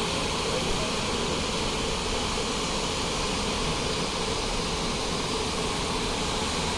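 Waterfall water rushing in a steady, even wash.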